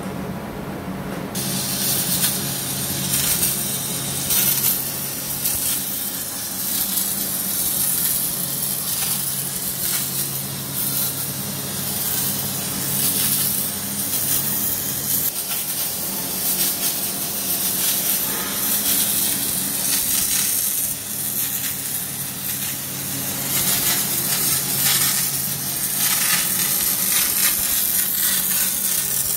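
MIG welding arc on steel plate: a steady crackling hiss that starts about a second in and keeps going, over a low steady hum.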